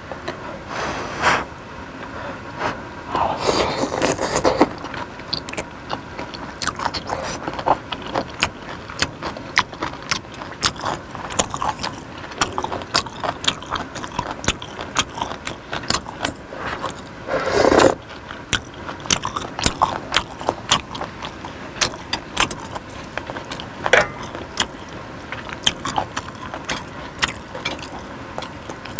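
Close-miked eating sounds: chewing with many rapid small wet clicks and crunches, broken by a few louder, longer mouth sounds about four seconds in and again near eighteen seconds.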